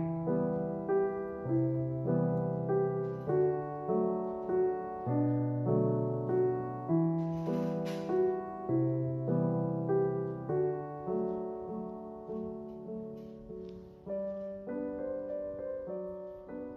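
Background piano music: a gentle, even run of piano notes over soft bass notes, growing quieter near the end.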